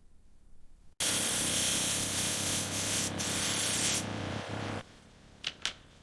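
Sanding on a metal part: a loud, steady rubbing that starts abruptly about a second in and lasts about three seconds, then goes on more softly for under a second before stopping, followed by a few short light scrapes.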